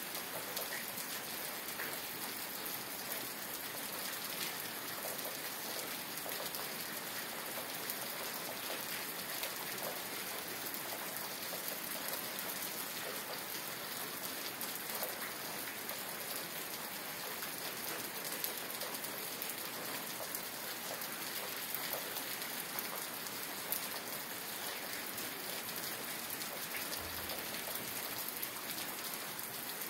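Steady rain falling, an even wash of noise with scattered individual drop hits.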